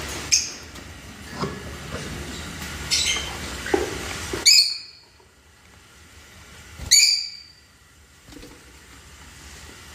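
Pet budgerigars giving short, sharp chirping calls at irregular intervals, the two loudest about four and a half and seven seconds in.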